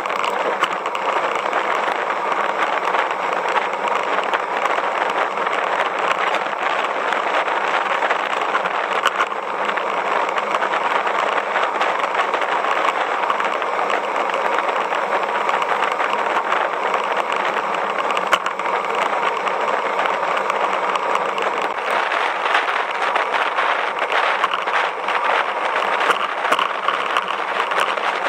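Steady rushing wind and tyre-on-road noise from a camera riding on a moving bicycle.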